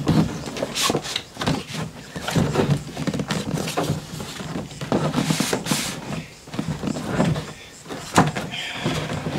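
Cardboard box being slid out of its tight printed cardboard sleeve: irregular scraping and rubbing of cardboard on cardboard, with short knocks and bumps as the box is handled.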